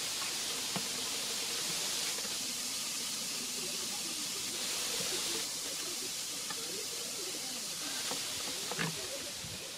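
Steady high hiss of outdoor ambience. From about halfway through, faint wavering calls sound beneath it, and a few soft knocks come near the end.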